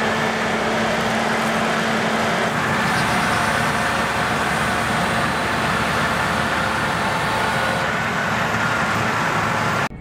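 Harvest machinery (combine harvesters and a tractor) running in the field, a loud, steady rush of engine noise with a few faint steady tones in it. It cuts off suddenly near the end.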